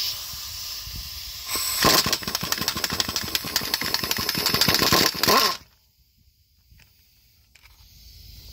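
Impact wrench with an 18 mm socket on an extension, loosening a truck starter's mounting bolt. It runs for a moment, then hammers rapidly for about four seconds as the bolt breaks loose, and stops about five and a half seconds in.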